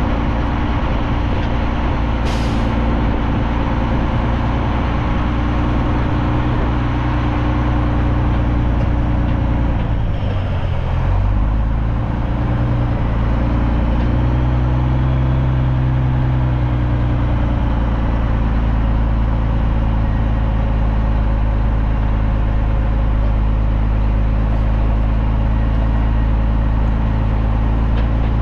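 Heavy diesel truck engine running while under way, its pitch dropping about ten seconds in and then climbing again, as with a gear change. A short sharp hiss about two seconds in.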